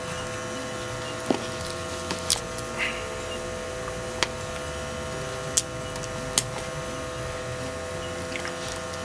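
Small battery-powered fan of a wood gas camp stove running with a steady hum. A handful of short sharp clicks and knocks come as sticks are pushed down into the burning stove.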